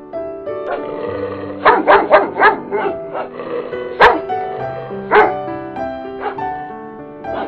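Dog barking in short sharp bursts over background music: a quick run of four barks about two seconds in, then single barks about four, five and six seconds in, the one near four seconds the loudest.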